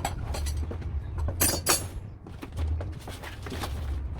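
Parts of a bird feeding station and their packaging being handled: light knocks and clicks, with a brief loud rustle or clatter about one and a half seconds in, over a low steady rumble.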